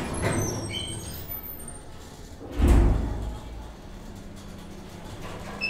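Schindler 2400 hydraulic elevator setting off after its doors close: a loud low thump about two and a half seconds in, then a steady low hum as the car travels.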